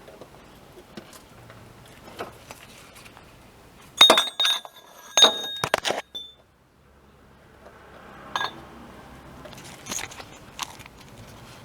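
Metallic clinking and jangling, loudest for about two seconds in the middle with short ringing tones, over a faint steady hum and scattered clicks.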